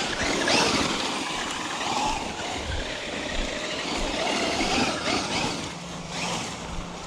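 Traxxas UDR electric RC desert truck being driven: its brushless motor whines, rising and falling in pitch with the throttle, over a steady hiss of tyre noise.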